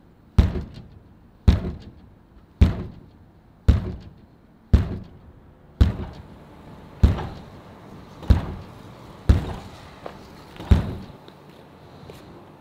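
Heavy thuds, about one a second, each with a short echoing tail, the last about eleven seconds in. A faint steady hum comes in about halfway through.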